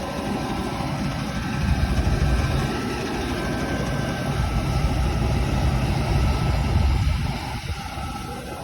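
Combine harvester running, a steady low engine rumble that grows heavier after about a second and eases off near the end.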